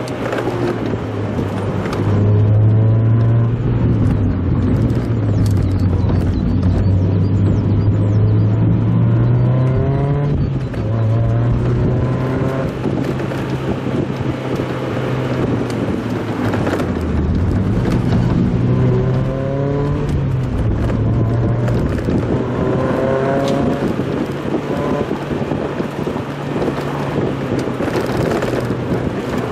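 Mazda Roadster's four-cylinder engine heard from inside the car while driving, its revs rising and dipping several times, over a steady rush of road and wind noise. The playback is sped up, which raises the pitch.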